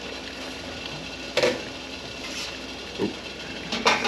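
Stainless steel cookware clanking as a steamer insert and glass pot lid are handled over a pot of boiling water: a sharp metal clank about a second and a half in, a softer knock around three seconds, and another sharp clank near the end, over the steady noise of the boiling water.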